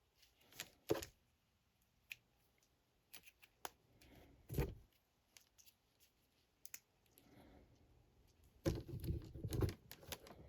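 Small plastic action figures being handled: scattered light clicks and knocks of plastic parts and pieces, with a busier run of knocks near the end.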